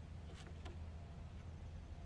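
Faint background room tone: a steady low hum with two faint ticks about half a second in.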